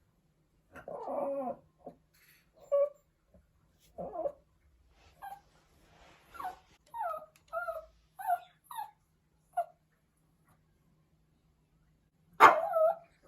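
Pomeranian puppy crying in short whimpering yelps and howl-like whines, a run of brief cries bending up and down in pitch, then a loudest cry near the end; distress calls of a puppy left alone and missing its owner.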